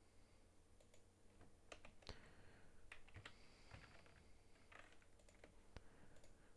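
Faint typing on a computer keyboard: an irregular run of keystroke clicks lasting about five seconds.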